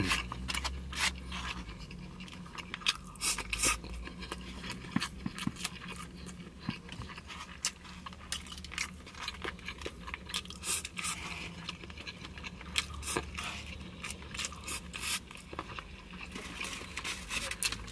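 Close-miked eating: chewing of grilled meat and broken rice, with a plastic fork scraping and tapping in a styrofoam takeout box. Many short, irregular clicks and crackles.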